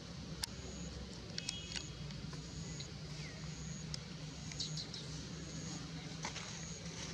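Outdoor ambience: a steady low hum with short, high-pitched chirps repeating about once a second and a few sharp clicks.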